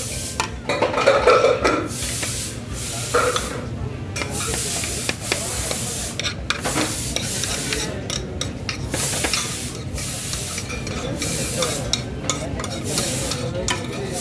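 A spoon scraping and stirring paneer biryani out of a metal cooking pot onto plates, over a steady hiss of kitchen noise.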